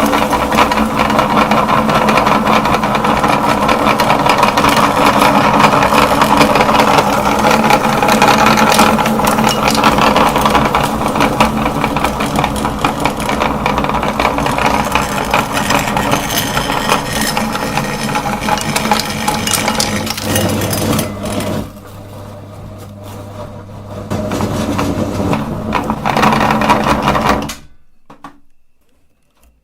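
Electric meat grinder running under load: a steady motor hum with dense crackling and crunching as it grinds hard candy. It eases off for a couple of seconds about three-quarters through, picks up again, then cuts off shortly before the end.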